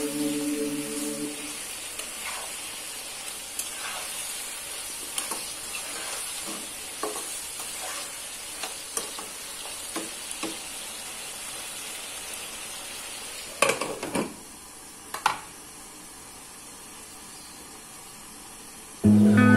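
Vegetable pieces frying in oil in a nonstick pan, with a steady sizzle while a spatula stirs and taps against the pan. About fourteen seconds in come a few louder clanks, and after them the sizzle is muffled under a glass lid.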